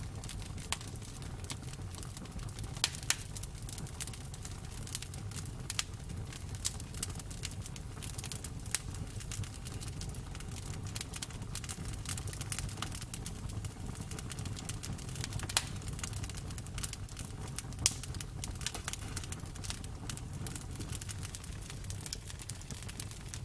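Campfire burning: a steady low rumble of flames under frequent sharp crackles and pops of burning wood. A few louder snaps stand out, two close together about three seconds in and others around fifteen and eighteen seconds in.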